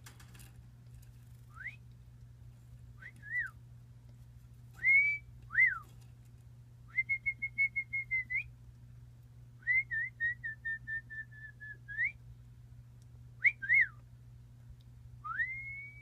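A person whistling to coax a pet budgerigar to call: short rising and up-and-down chirping whistles, and two longer warbling trills of about two seconds each, each ending in an upward flick.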